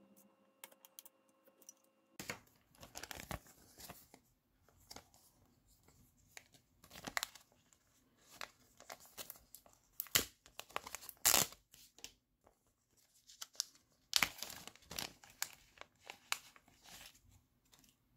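A clear plastic bag of replacement rubber drive belts crinkling and rustling in irregular bursts as it is handled and opened by hand, loudest about two-thirds of the way through.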